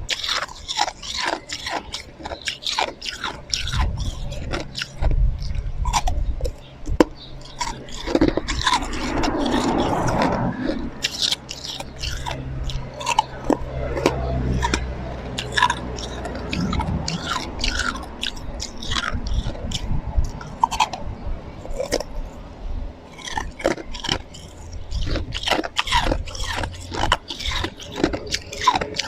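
Close-up crunching and chewing of slushy ice: many sharp, irregular crunches as the ice is bitten and ground between the teeth. A low rumble runs under it for several seconds in the first half.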